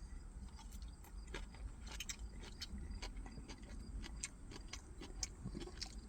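Faint, irregular small clicks and crunches of someone eating: chewing the meal's vegetables, with small utensil clicks.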